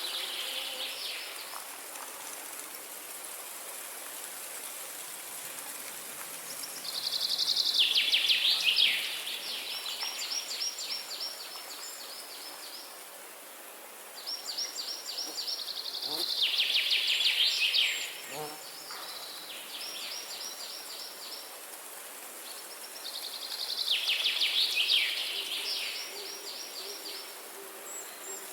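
A songbird sings long phrases of fast, high trills, starting again every several seconds, over a steady hiss of flowing water.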